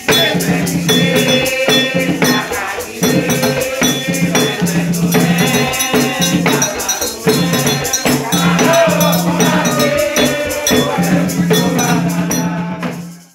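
Haitian Vodou ceremonial music: drums and a steady beat of sharp percussion strokes with a bell and rattle, under group singing. It cuts off suddenly near the end.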